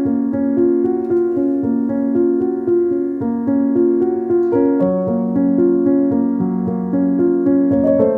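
Background keyboard music: a gentle piano-like melody of notes changing every fraction of a second over held chords.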